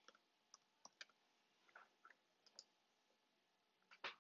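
Faint, scattered keystrokes on a computer keyboard, then one louder click near the end.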